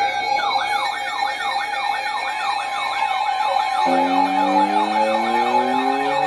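Sirens: one wails in fast repeating pitch sweeps, about three a second. About four seconds in, a second, lower siren joins and slowly rises in pitch as it winds up.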